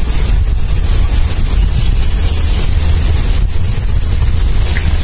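Wind buffeting the microphone: a loud, steady low rumble with a hiss above it, over the running water of a small stream.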